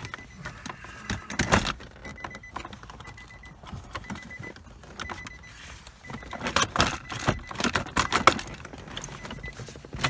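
Clicks, taps and light rattles of hard plastic console trim and loose parts being handled around an Infiniti G35's exposed shifter during reassembly, busiest in the second half. A faint thin high tone comes and goes.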